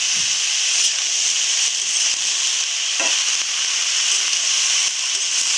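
Chopped spring onion stalks and potatoes sizzling steadily in hot oil in an aluminium wok, stirred with a metal spatula that clicks against the pan a couple of times.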